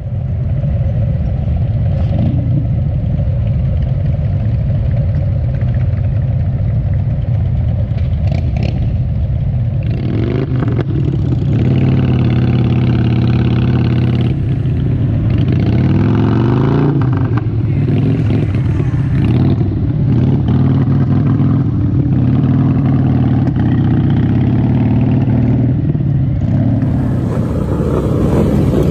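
A large group of Harley-Davidson V-twin motorcycles riding together, heard from among the bikes: a steady low engine drone, with the engine pitch rising and falling several times about ten to eighteen seconds in as the bikes accelerate and shift gears.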